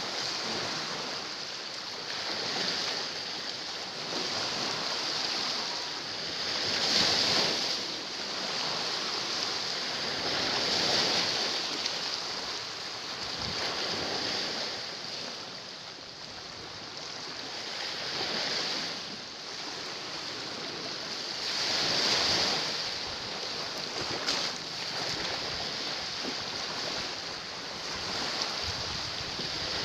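Sea waves washing against shoreline rocks, the surf swelling and easing every few seconds.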